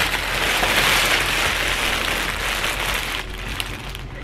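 Clear plastic packaging of many braiding-hair packs crinkling and rustling as they are handled and gathered into the arms. The rustling stops about three seconds in.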